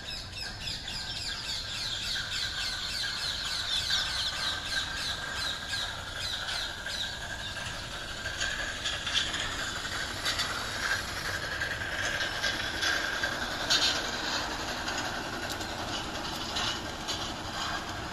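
Large-scale model Union Pacific Big Boy locomotive and its freight cars running along garden railway track: a steady high squeal with a rapid run of fine clicks from the wheels and track.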